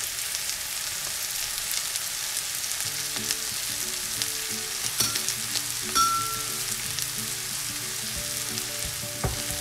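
Oiled vegetables sizzling steadily in a hot frying pan while soaked rice flakes and peanuts are tipped in from a steel strainer, with scattered small clicks.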